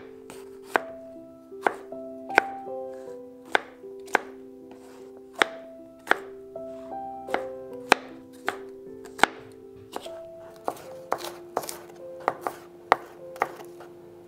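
Chef's knife chopping bell pepper on a plastic cutting board: sharp knocks of the blade on the board, irregular, about one to two a second. The strikes come quicker from about ten seconds in.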